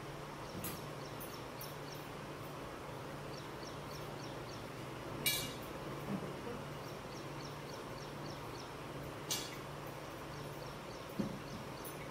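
Steel bowls and utensils clinking a few times as paneer pieces are handled in a bowl of flour, the sharpest clink about five seconds in. Underneath runs a steady low hum and faint, rapidly repeating high chirps.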